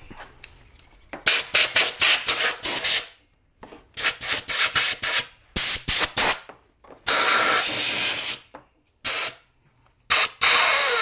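Compressed air from a blow gun in a series of short stop-start hissing blasts, blowing dust out of the gas golf cart's air filter and its housing.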